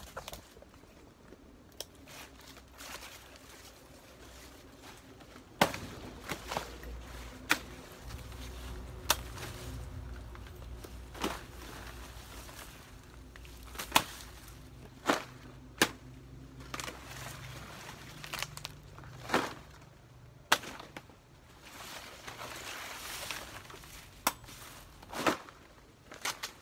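Banana plant stalks being hacked and broken by hand: about a dozen sharp chops or cracks at irregular intervals, with leaves rustling between them.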